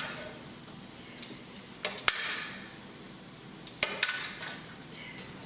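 Potatoes sizzling steadily in a frying pan of rendered chicken fat and olive oil, with a few sharp clinks of a utensil against the pan.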